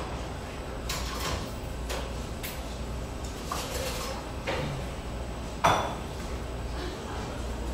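Coffee shop crockery and cutlery clinking and knocking several times, the loudest a ringing clink about five and a half seconds in, over a steady low room hum.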